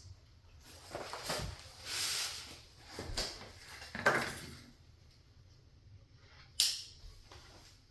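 Flat-pack cabinet panels and packaging being handled: a run of scattered knocks, scrapes and rustles, with a sharp knock a little past six seconds in.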